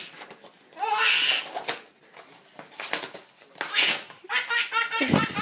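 A baby laughing in bursts, ending in a run of quick belly laughs, while a Dalmatian tears at paper and cardboard with brief ripping sounds between the laughs. A dull thump comes near the end.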